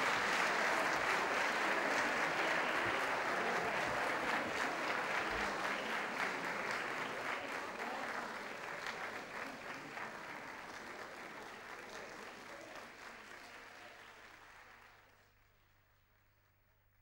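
Audience applause, a dense patter of clapping that fades out gradually and dies away about fifteen seconds in.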